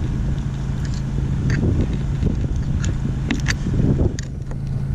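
Screwdriver prying at a stainless steel deck bracket that has been ground through: a few sharp metallic clicks and scrapes, over a steady low hum.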